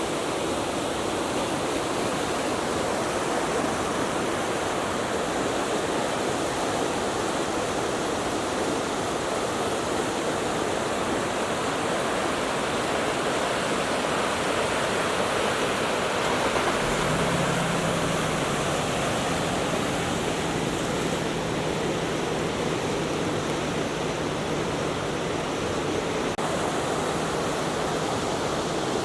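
Chubetsu River rushing steadily, a constant roar of flowing water.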